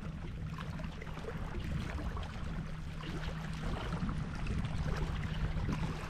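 Sea water washing against shore rocks, a steady even wash with no breaks, under a faint steady low hum.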